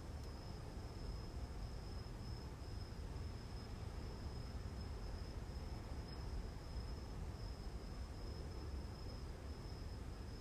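A cricket trilling steadily on one thin, high note, over a faint low rumble.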